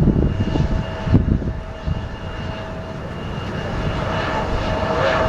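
Airplane engine droning and growing steadily louder as the aircraft approaches, with wind gusting against the microphone in low rumbles during the first two seconds.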